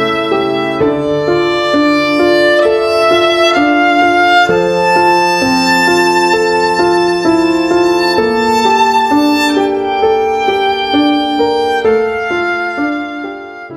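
Background music: a melody of pitched notes over a held bass line, fading out at the very end.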